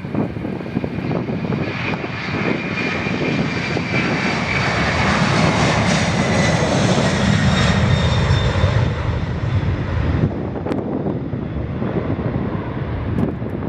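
Twin turbofan engines of an Airbus A300-600 freighter at departure thrust, passing by: a loud jet roar with a high fan whine that builds to a peak about two-thirds of the way through, then fades and dulls as the aircraft moves away.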